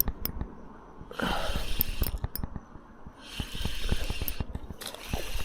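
Fishing reel being cranked in spells of winding with short pauses, its gears clicking and whirring, as a hooked tailor is wound in.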